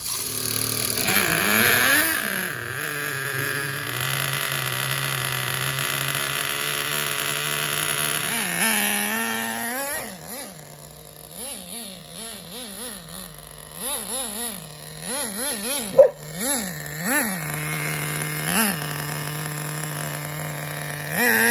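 Small nitro-methanol RC car engine, running on 20% nitro fuel, idling steadily, then revved over and over in short throttle blips through the second half. Just after first start-up on this fuel it is running rich.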